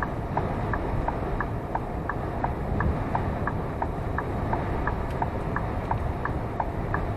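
Lorry cab indicator ticking in a quick, steady tick-tock, alternating a higher and a lower click, over the constant drone of the truck's engine and tyres on a wet motorway.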